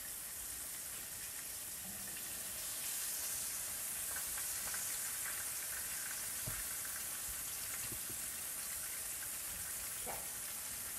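Flour-coated fish pieces sizzling steadily in hot oil in a frying pan, with a few light taps.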